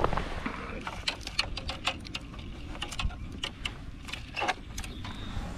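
Click-and-pawl fly reel ratcheting in irregular runs of sharp clicks as line is pulled off it, under a low rumble of wind on the microphone.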